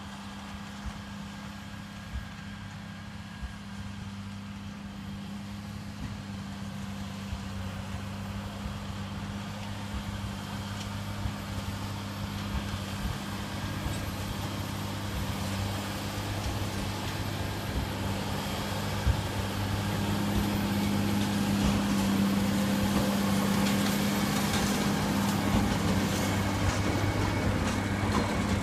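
Farm tractor's diesel engine pulling a hay baler across a hayfield, a steady engine hum with the baler working behind it. It grows louder as the rig comes closer, loudest over the last third, with some ticking near the end.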